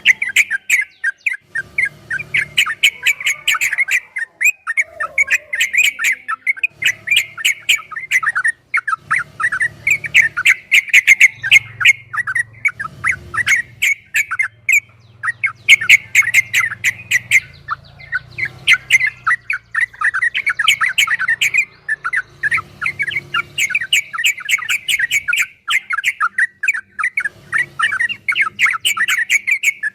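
Yellow-vented bulbul (trucukan) singing long, rapid chattering 'ropel' phrases, one burst of fast notes after another with short breaks between them.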